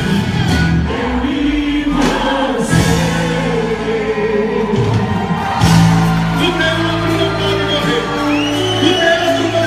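Festa junina quadrilha music with singing, with steady bass notes that change every second or two beneath the sung melody.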